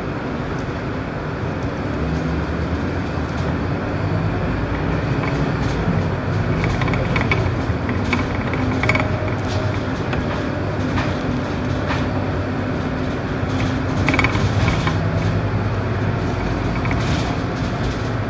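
Scania K230UB city bus's diesel engine heard from inside the cabin, getting louder about two seconds in as the bus pulls away from a standstill in traffic and accelerates along the road, with scattered light clicks and rattles.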